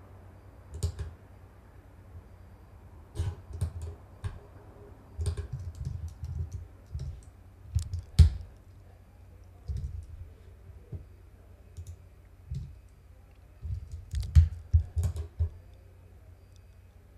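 Computer keyboard keys and clicks tapped in irregular spurts, some landing with a dull thump; the loudest come about eight seconds in and in a cluster around fourteen seconds, then it goes quiet.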